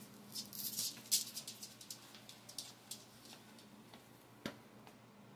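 A small dog's claws clicking on a laminate floor as it gets up and moves off, with light rustles near the start, a sharper click about a second in and a single knock about four and a half seconds in, over a faint steady hum.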